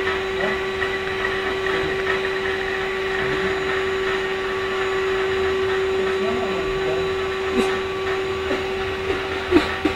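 Vacuum cleaner running steadily with no hose attached, a constant motor whine, with a few sharp clicks near the end.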